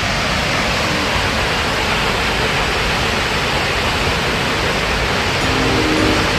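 Steady rushing of the Akiu Great Falls, a large waterfall's water plunging and crashing, an even noise without breaks. Faint music notes come in near the end.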